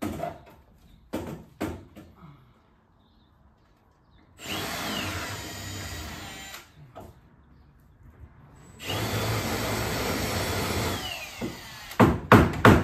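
Power drill run twice for a couple of seconds each, spinning up and winding down each time. A few sharp knocks come near the start, and a louder cluster of knocks near the end.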